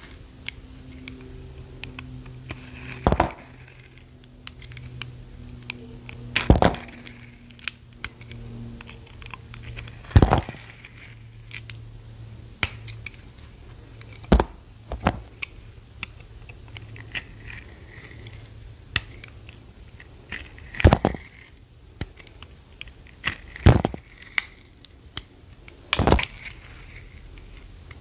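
A decorated bar of soap being cut and snapped apart with a knife: a series of sharp cracks and snaps every few seconds, with faint crumbling in between. A low steady hum runs underneath for much of the time.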